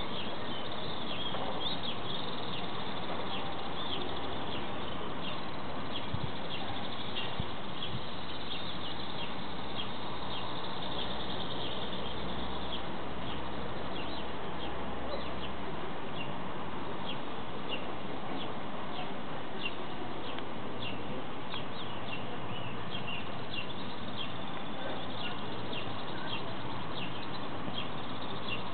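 Outdoor evening ambience: many small birds chirping in short, high calls again and again over a steady background hiss, with a low distant hum for a few seconds in the middle.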